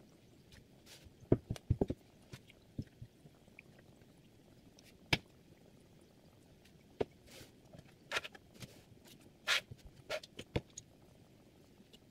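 Knife-sharpener parts and a knife being handled on a tabletop: a scattered series of sharp clicks and knocks, with a couple of short scrapes near the end.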